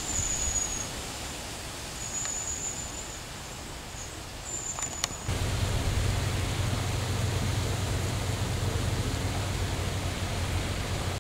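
Outdoor ambience beside still water: a steady hiss of air and leaves, with a few short, very high thin bird calls in the first half. From about five seconds in, a low steady rumble joins it.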